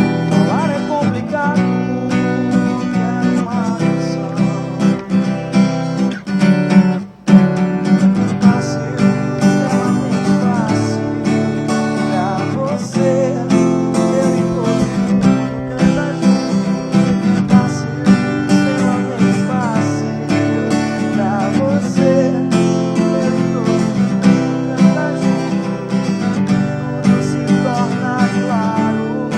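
Music led by strummed acoustic guitar, with a brief break about seven seconds in.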